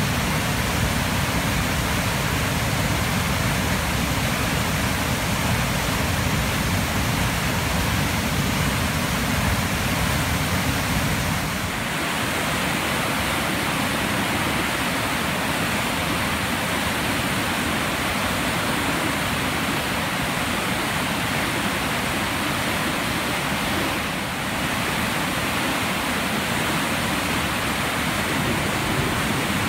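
A flooded waterfall: the river in spate pours over rock ledges and churns through rapids in a loud, steady rush. About twelve seconds in the deep rumble thins out, leaving the hissing rush.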